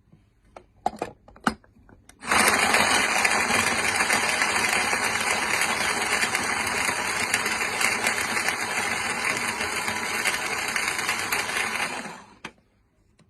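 A few plastic clicks of handling, then an NGT battery-powered boilie grinder's 30 W electric motor and three steel blades run steadily for about ten seconds before switching off abruptly.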